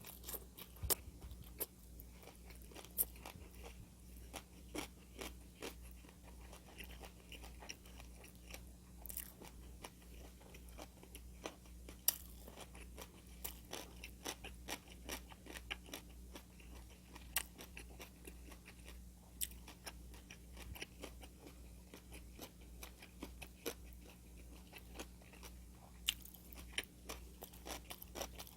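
Close-up chewing and crunching of food: irregular crisp bites and wet chewing clicks throughout, over a faint steady low hum.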